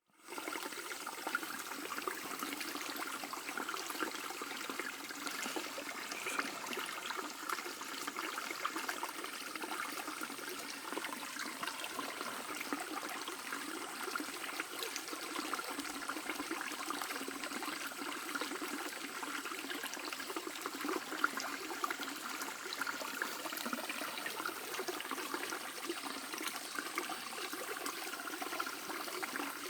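A small mountain stream burbling and trickling over stones, steady throughout.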